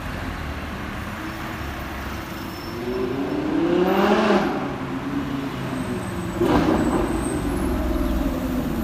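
Cars in city street traffic. One engine rises and falls in pitch as it passes about four seconds in, a sharp burst follows about two seconds later, and a steady engine sound runs toward the end.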